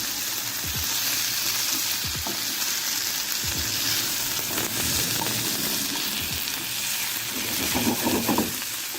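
Ackee with tomato, onion and bell pepper sizzling steadily in a hot pot, with a few soft knocks of a utensil stirring it.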